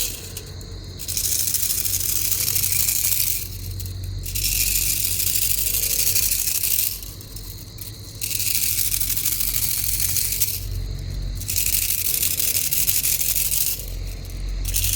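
Cicadas buzzing in loud, high-pitched waves, each about three seconds long with a short break between, over a steady low rumble.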